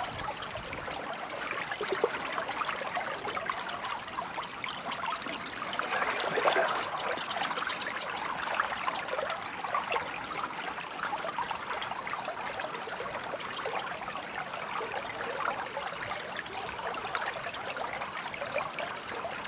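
Small stream trickling and babbling: a steady bubbling wash of running water over shallows and woody debris, swelling slightly about six seconds in.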